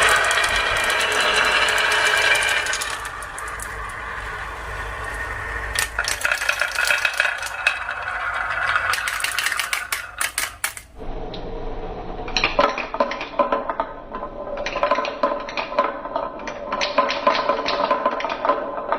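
Marbles rolling and clattering down a marble run, with many quick clicks as they knock against the track and each other. The sound changes abruptly about eleven seconds in, then the clicking carries on.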